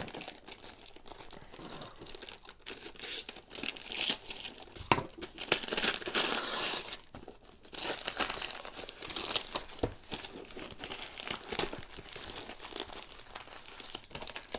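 Brown kraft wrapping paper being torn and crumpled by hand off a parcel, in irregular rips and crinkles, loudest about five to seven seconds in.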